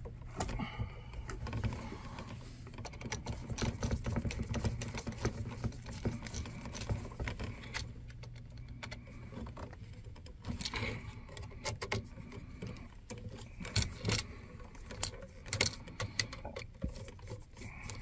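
Scattered small clicks and rattles of hands working stiff copper electrical wires around a light switch, as a hooked wire is fitted and tightened under the switch's terminal screw.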